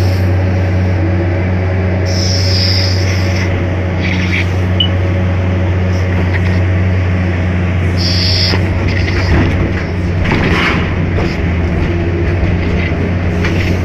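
Excavator's diesel engine running steadily under load with a low, even drone, joined twice by a brief high hiss, about two seconds in and again about eight seconds in, and by a rough clatter of rock and dirt around the bucket about ten seconds in.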